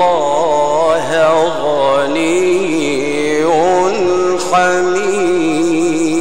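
A man chanting the Quran in the melodic mujawwad style into a microphone. He holds long notes, and his pitch wavers and slides through ornamented runs.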